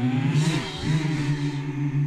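A choir vocalising the sounds of a Honda Civic: several held notes with a sustained chord underneath. About half a second in, voices slide up and back down in pitch with a short breathy hiss.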